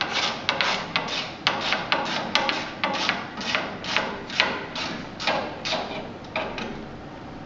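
Irregular sharp clicks and knocks, a few a second, from tools and screw working against the Phenix fireplace's door frame as a screw is fitted, dying away near the end.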